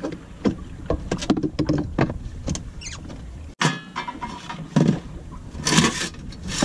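A sailboat's steel steering cable drawing over a steering-system pulley sheave that had seized and has just been lubricated, with irregular clicks, knocks and creaks from the moving steering gear. The sound drops out briefly about three and a half seconds in.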